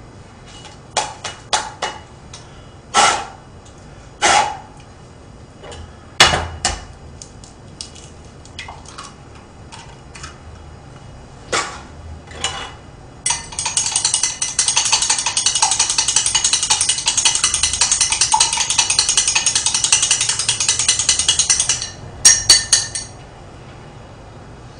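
Scattered clinks and knocks of tableware, then a fast, even ratcheting rattle for about nine seconds that cuts off suddenly, followed by a few more clicks.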